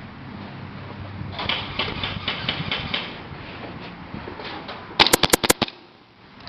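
An airsoft gun fires a short full-auto burst of about seven quick shots, the loudest thing, a little past halfway. Earlier there is a run of softer rapid clicking.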